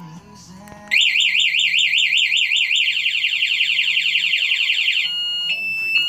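Go-kart alarm system siren being tested: about a second in it starts a slow up-and-down warble, switches to a much faster warble near the three-second mark, then changes to a steady high beeping tone near the end.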